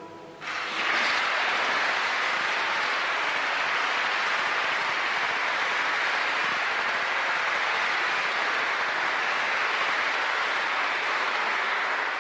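Audience applauding: the clapping breaks out about half a second in, right after a choir's final chord, and goes on at a steady level.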